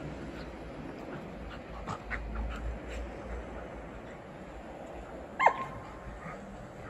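Two small dogs play-fighting: a few short sharp yips about two to three seconds in, then one loud, short yelp that drops in pitch about five and a half seconds in.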